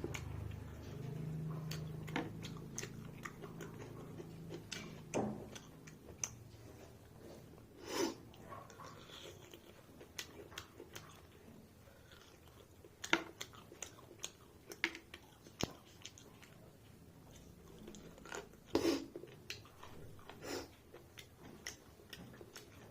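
A person chewing and eating mutton and rice close to the microphone, with scattered short wet mouth clicks and a few louder bites.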